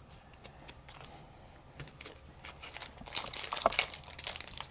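Foil Pokémon booster pack wrapper crinkling as it is handled, starting about three seconds in and growing louder. Before that, only a few faint clicks of cards being handled.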